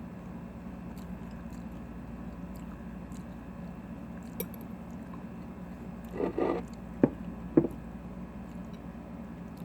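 A person chewing and biting into a kale salad close to the microphone, with a steady low hum underneath. Two sharp clicks come about a second before the end, half a second apart.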